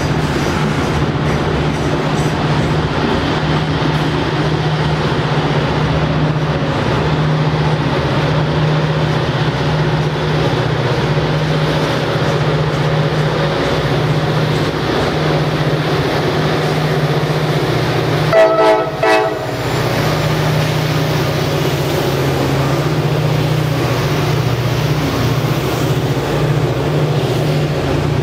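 Loaded coal hopper cars rolling past on the rails, then the two rear EMD SD40E helper locomotives passing with their 16-cylinder diesels running in a steady low drone as they push. About eighteen seconds in, a locomotive horn gives two short blasts.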